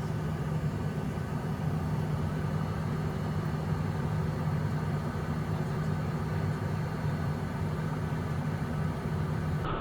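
Steady in-flight cockpit noise of a Cessna Citation 501: its twin Pratt & Whitney JT15D turbofans and the airflow over the airframe, an even low hum that does not change.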